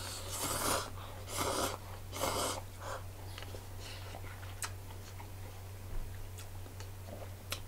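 Cup ramen noodles being slurped off chopsticks: three quick hissing slurps in the first three seconds, then quieter chewing with a few small clicks.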